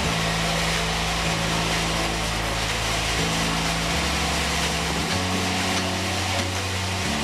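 Sawmill saw cutting meranti timber, a steady high hiss, under background music whose low bass notes change pitch about every second.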